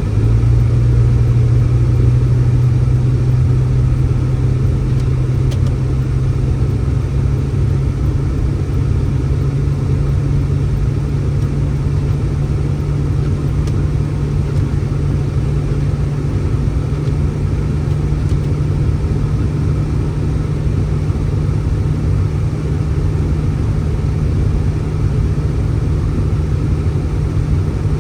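Steady low rumble with a constant low hum running unchanged.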